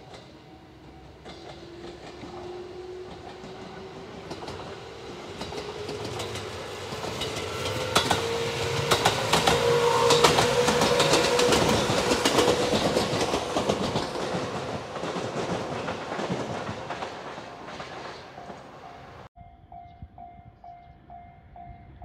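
La Malle de Bois tourist train passing on an electrified line: a motor whine rising in pitch as it approaches, then the clatter of wheels over rail joints, loudest in the middle. About three seconds before the end the sound cuts to a level-crossing warning bell ringing in a rapid steady rhythm.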